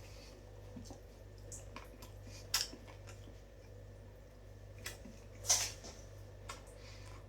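Quiet, wet mouth sounds of someone biting into and chewing a piece of stuffed pizza crust: scattered soft clicks and smacks, with two louder ones about two and a half and five and a half seconds in.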